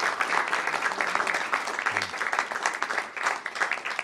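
A small group of people applauding, a dense, steady patter of many hands clapping.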